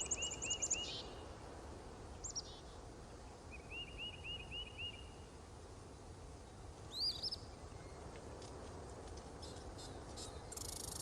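Wild birds calling at a forest edge: short rapid trills of repeated chirps, one just at the start and another about four seconds in, with single calls between, over a faint steady background hiss.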